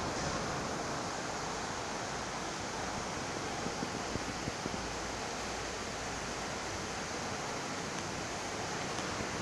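Steady rushing of moving water in a fish pond, with a few faint clicks or small splashes about four seconds in.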